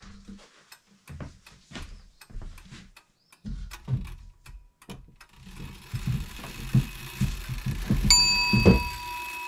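A plywood panel is handled and knocked against the wooden frame of a generator box, making a string of dull knocks and scrapes, with the heaviest thump near the end. From about halfway a hissing swell rises. Near the end a bright bell-ding sound effect rings and hangs.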